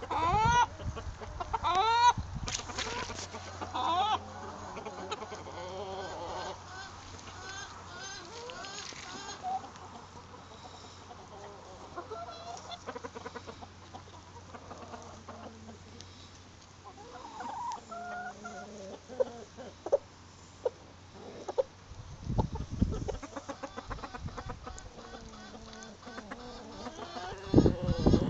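Millefleur Pekin bantam chickens clucking and calling, several birds at once, busiest and loudest in the first few seconds, then scattered softer clucks. A faint low hum runs underneath, with low rumbling bursts on the microphone about two-thirds of the way in and again near the end.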